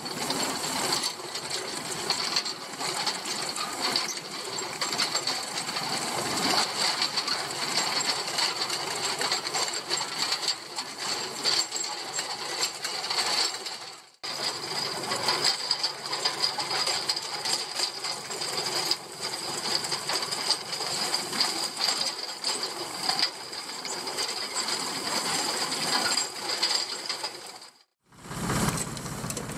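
Rotary hay tedder working behind a tractor, turning dry hay: its spinning rotors, tine arms and gears rattle and clatter steadily. The sound breaks off for a moment about halfway through and again near the end.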